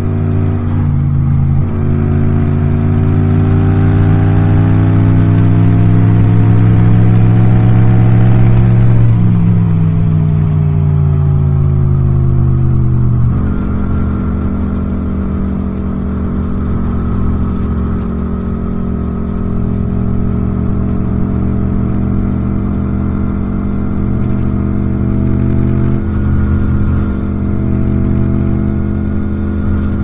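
Yamaha MT-07's 689 cc parallel-twin engine under way: after a brief break in the note about a second in, as with a gear change, the revs climb steadily, then fall away from about nine seconds in, and the engine runs at a steady speed for the rest.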